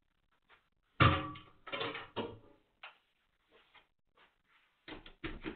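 A loud wooden clack about a second in, then a few smaller knocks and rattles, and two more knocks near the end: a snooker rest and cue being handled and put back into a wall-mounted cue rack.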